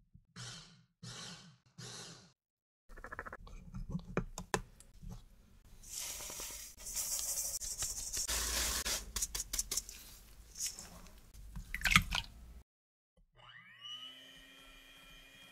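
Electric food chopper pulsed three times in short bursts, grinding pistachio powder with powdered sugar. Then the dry mix is shaken through a fine metal mesh sieve into a stainless steel bowl, a rustling hiss with many clicks and a sharp knock of the sieve on the bowl. Near the end an electric hand mixer starts in the egg whites, its motor whine rising in pitch and then running steadily.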